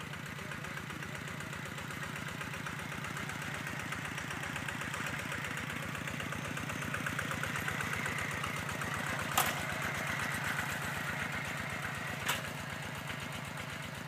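Single-cylinder diesel engine of a two-wheel walking tractor running steadily under load as it works a field. It grows louder as it passes close by. Two sharp clicks come about nine seconds in and three seconds later.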